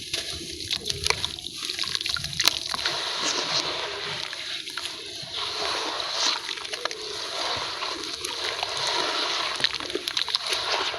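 Sand-cement cakes crumbling and breaking up in plenty of water, with sharp crunchy clicks over a steady watery hiss and splashing. The clicks come thickest in the first few seconds.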